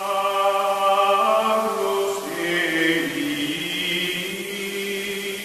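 Choral chanting music: voices holding long notes that change slowly from one to the next.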